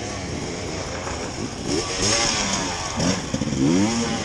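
Enduro dirt-bike engines revving on a hill climb, the pitch rising and falling several times, louder from about two seconds in.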